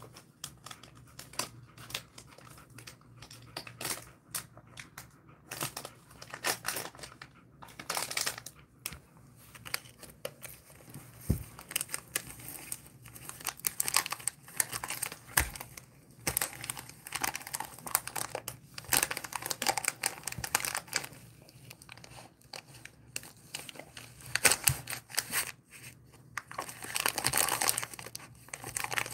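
Plastic dog-treat wrapper crinkling and crackling as a dog licks and bites at it, working a chew out of the packet, which is torn only partly open. The crackles come irregularly, busiest in the middle stretch and again near the end.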